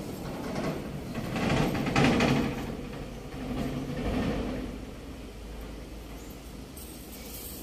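Rustling and scraping bursts of a nylon cast net with a chain lead-line being gathered and handled in the hands, loudest about two seconds in and again around four seconds, over a steady low rumble.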